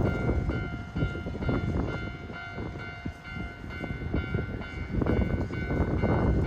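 A train running over a level crossing, its wheels rumbling and clacking over the rail joints, with the crossing's warning bell ringing steadily over it. The rumble eases off a little in the middle and comes back up near the end.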